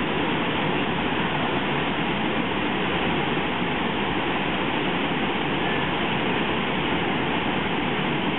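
Steady rush of fast-flowing river water pouring over and below a waterfall.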